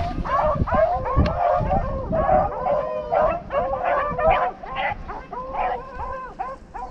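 A pack of rabbit-hunting dogs baying in quick, overlapping calls as they run a rabbit that has just been shot, the chorus growing fainter near the end.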